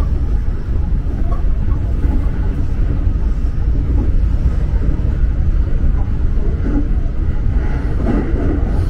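Electric commuter train running along the line, heard from inside the front car: a loud, steady low rumble of the train on the rails.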